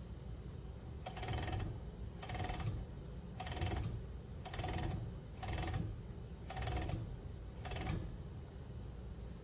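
Industrial overlock (serger) sewing machine stitching a knit side seam in seven short runs about a second apart, each run a brief mechanical whir-clatter, over a steady low hum.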